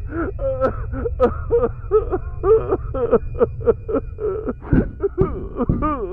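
A person's voice making rapid, wordless vocal sounds, several a second, with strongly bending pitch, over a steady low hum.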